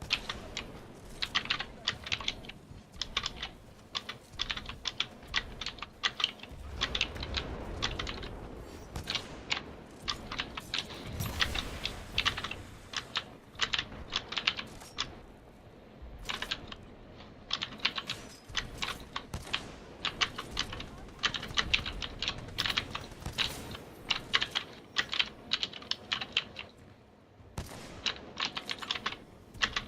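Typing on a mechanical keyboard with Gateron Blue clicky switches: a rapid, continuous run of sharp key clicks, broken by brief pauses.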